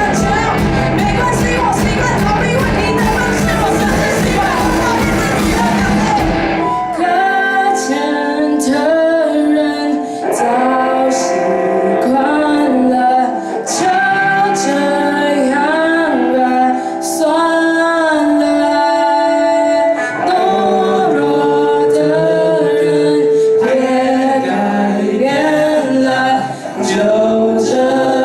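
A band plays a pop song with drums and bass; about seven seconds in the instruments drop out and a group of voices carries on singing in harmony without accompaniment.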